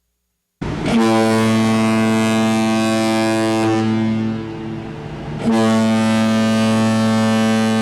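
Ship's horn sounding two long, deep blasts, the first starting a little over half a second in and the second about five and a half seconds in.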